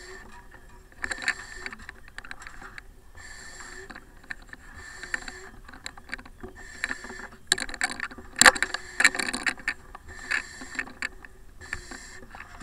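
Firefighter breathing through an SCBA face mask, the demand regulator hissing with each breath about every two seconds. A burst of knocks and scrapes from gear comes about eight seconds in.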